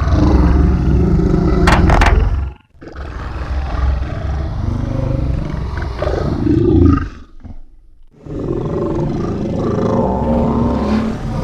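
Designed creature sound effects for the mandibles of a giant sea scorpion (Jaekelopterus): three long, rough, low roaring growls with short breaks between them. A quick cluster of sharp clicks comes about two seconds in.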